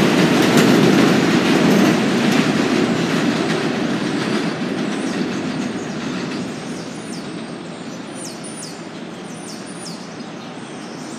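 R188 subway train running away along the elevated track, its noise loud at first and fading steadily as it recedes. In the second half, a run of short, high chirps that fall in pitch comes through above the fading train.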